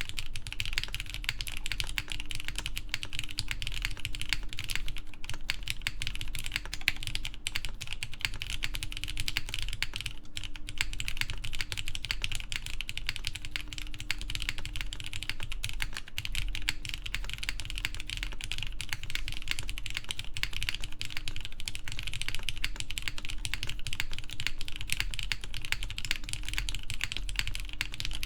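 Continuous fast typing on a Matrix 8XV3.0 mechanical keyboard with lubed Cherry MX Black Clear Top linear switches and GMK keycaps on an aluminum plate: a dense, steady stream of keystroke clacks.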